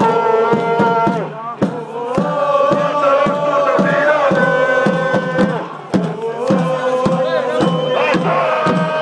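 A crowd of football supporters singing a chant together, holding long notes in phrases with short breaks between them, over sharp regular beats about two to three a second.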